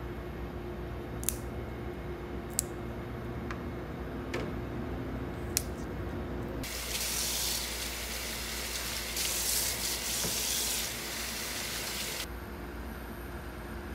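Water running in a steady stream for about six seconds, starting and stopping abruptly, after a few sharp clicks.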